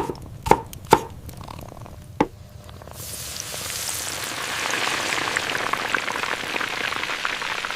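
Three sharp knocks, then about three seconds in food starts sizzling in a hot pan, a steady hiss full of small crackles and pops.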